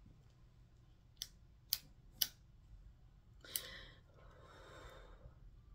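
Quiet sharp clicks, three about half a second apart and a fourth a second later, then a soft exhale of breath.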